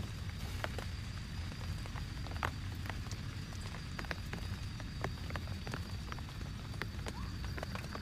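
Rain, with single drops ticking irregularly on a nearby surface over a steady low rumble.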